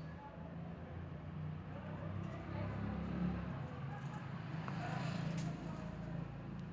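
Low engine-like rumble of a motor vehicle, swelling through the middle and easing near the end.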